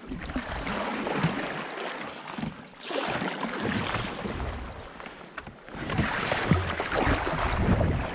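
Sea kayak paddle strokes splashing and water rushing along the hull, rising and falling in three surges.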